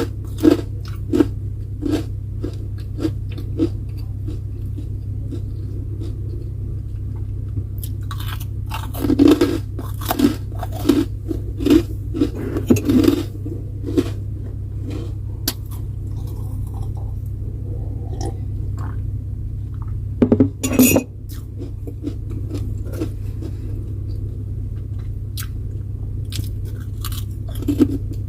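A person chewing and crunching food close to the microphone, in irregular clusters of crisp bites, over a steady low hum.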